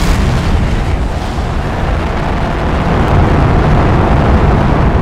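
Rocket-launch sound effect: the steady, loud rumble of rocket-engine thrust, a dense wash of noise heaviest in the low end.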